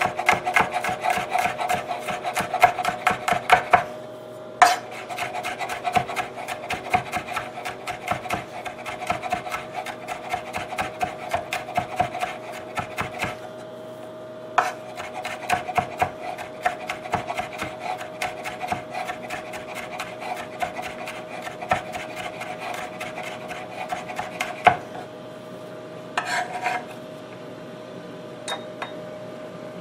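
Chef's knife rapidly mincing garlic on a wooden cutting board: quick, steady rocking chops in runs of several seconds. The chopping pauses about four seconds in and again around thirteen seconds, and near the end gives way to a few scattered taps.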